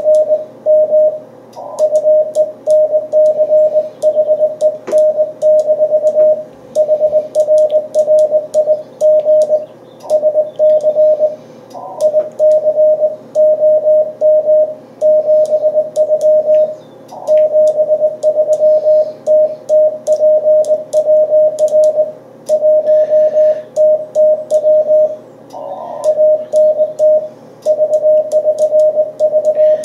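Morse code (CW) from an amateur radio transceiver on the 40 m band: a single tone of about 600 Hz keyed in a steady stream of dots and dashes, with brief gaps between words, over a low hiss of band noise.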